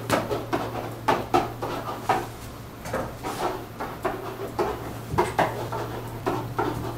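Pen tapping and scratching against an interactive whiteboard during handwriting: a run of irregular short taps and scrapes as each letter is written.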